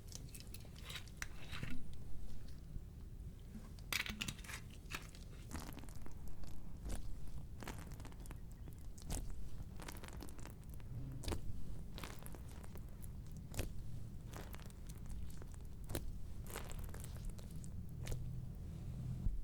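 Close-up kitchen handling sounds while focaccia dough is topped: irregular small clicks and crackles, spaced a second or so apart.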